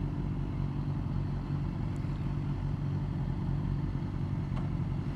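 Motorcycle engine running steadily at low, even revs, with road noise.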